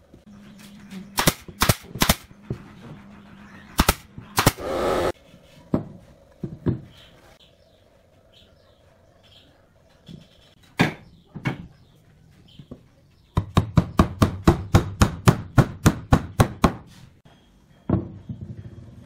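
Pneumatic nail gun firing into pine: a few sharp shots in the first seconds with a short burst of air hiss around five seconds in, two more shots near the middle, then a rapid even run of about eighteen shots at roughly five a second.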